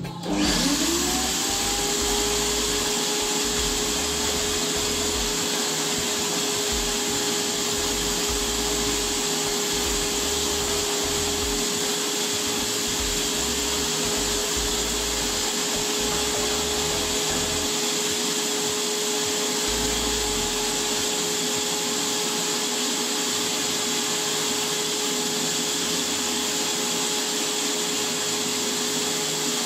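Electric turbine paint sprayer starting up with a whine that rises to a steady pitch within the first second. It then runs steadily, blowing air with an even hiss as the gun sprays anti-rust paint.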